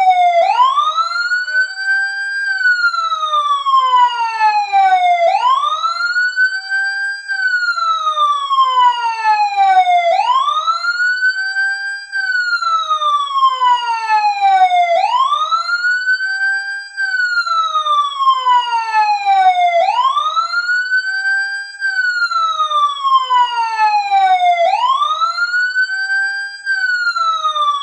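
Fire truck siren wailing loudly, each cycle rising over about two seconds, holding briefly at the top, then falling slowly, repeating about every five seconds. It comes on suddenly as the countdown timer's alarm going off at zero.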